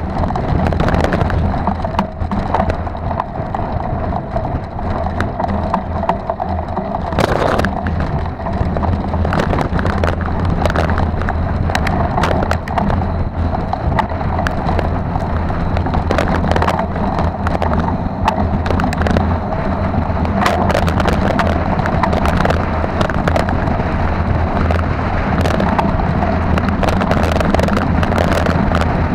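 Mountain bike riding fast over a rutted dirt track, picked up by a camera mounted on the bike or rider: a steady rumble of wind and tyres, broken by frequent knocks and rattles as the bike jolts over bumps.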